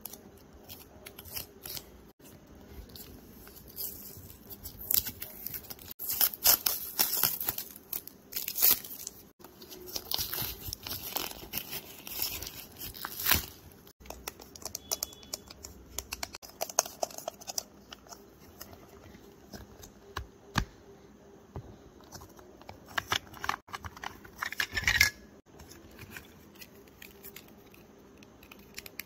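Paper wrapping and tape torn and peeled off a homemade paper-covered toy capsule ball by hand, crinkling and tearing in repeated bursts, thickest in the first half, with another short flurry later on.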